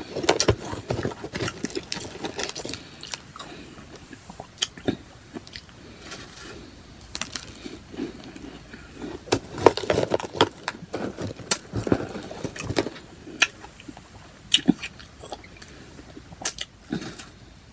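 Powdery freezer-frost ice chunks being bitten and chewed: irregular crisp crunches, some in quick clusters, with the hand rummaging in a plastic tub near the start.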